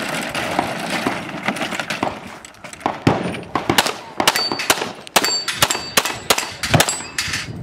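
A rapid string of gunshots from competition shooting, coming thick and fast from about three seconds in, with short high metallic pings after several shots as steel targets are hit.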